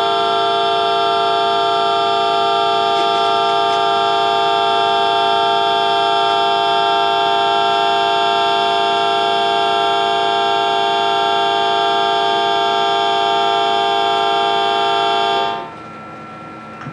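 Station platform departure signal sounding one steady, unchanging chord of several pitches, cutting off abruptly about a second before the end. It warns that the train's doors are about to close.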